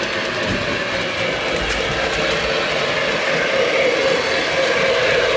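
Lionel Strasburg #89 Mogul O-gauge model steam locomotive running along Fastrack, a steady rolling noise from the train on the track.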